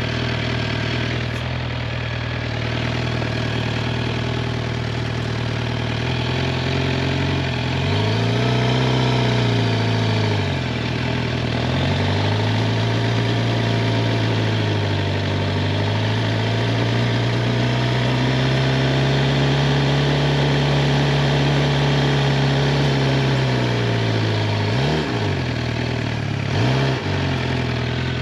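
Suzuki GSX-R 750's inline-four engine running, its revs rising and falling several times, with two quick blips near the end.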